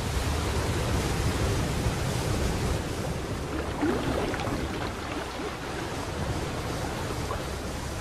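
Waterfall and fast river water rushing over rocks, a steady, even rush of water with no break.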